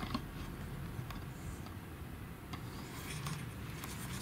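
Quiet background ambience: a steady low rumble with a few faint clicks and taps, which come more often near the end.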